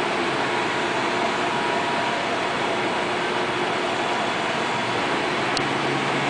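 MSC metal lathe running steadily: an even mechanical whir with a few faint steady tones from the motor and gearing.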